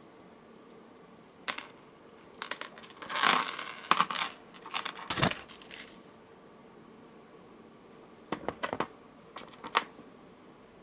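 Small beads clicking and rattling against each other as they are picked up and threaded onto a necklace, in a busy run of clicks from about a second and a half in until six seconds, then a few more near the end.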